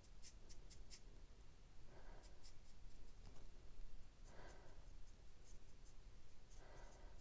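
Alcohol marker tip flicking across stamped cardstock in short strokes to colour fur. Faint, quick scratchy strokes come in runs of several at a time with short pauses between.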